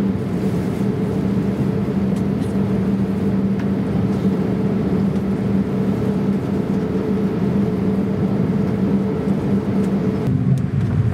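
Steady in-flight cabin noise of a Boeing 787-8 Dreamliner: a constant rush of engine and airflow with a low steady hum underneath. The sound changes abruptly about ten seconds in.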